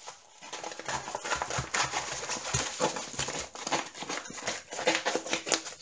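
Plastic packaging crinkling and rustling as a rolled diamond painting canvas and its bags of drills are unwrapped and handled, with many small irregular clicks and taps.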